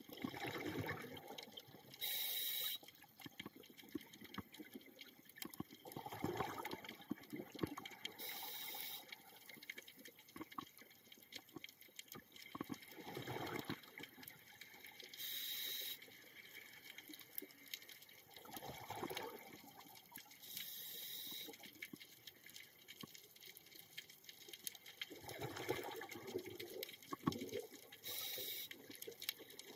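Scuba diver breathing through a regulator underwater: a short high hiss on each inhale and a gurgling burst of bubbles on each exhale, about one breath every six seconds.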